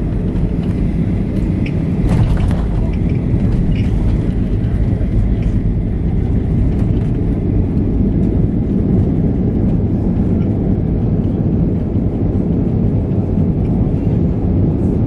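Boeing 737-800 heard from inside the cabin during landing: a loud, steady low rumble of the airliner, with a brief rattle about two seconds in.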